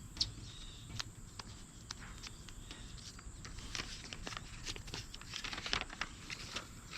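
Scattered light clicks and rustles of small items from a broadhead sharpening kit being handled, busiest in the second half.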